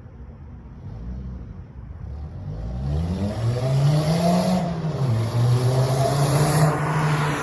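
Volkswagen Rabbit's engine revving up. It starts low and quiet, climbs in pitch and gets much louder from about two and a half seconds in, dips briefly near five seconds, then holds high.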